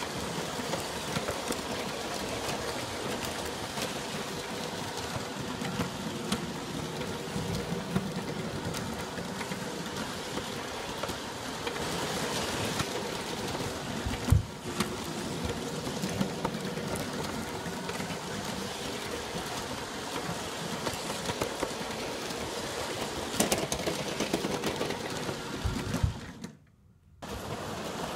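G scale model train running on its track: the electric motor's steady, slightly wavering whine over the rumble and clicking of the wheels on the rails. There is one sharper knock about halfway through and a brief drop-out near the end.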